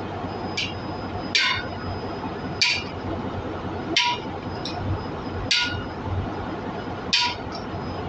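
Hammer blows on a driver tool, tapping a new exhaust valve seat into its bore in a diesel cylinder head: five sharp metallic clinks with a short ring, about one every second and a half, with a few lighter taps between.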